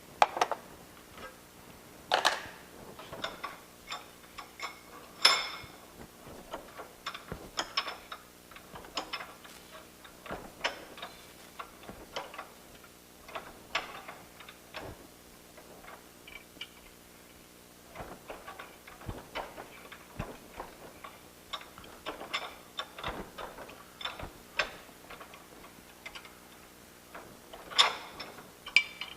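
Metal tools clinking and knocking against a forged steel bar as a double twist is put into the handle of a hand-forged egg cooker: irregular sharp taps and clanks, a few louder knocks among them, over a faint steady hum.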